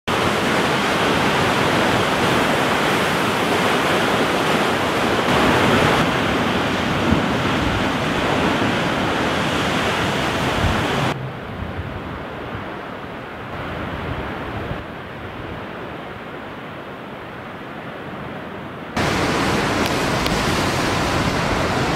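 Lake Superior storm waves crashing and surging against a rocky shore: a continuous rush of surf. About eleven seconds in the sound drops to a softer, duller surf, then comes back full and loud near the end.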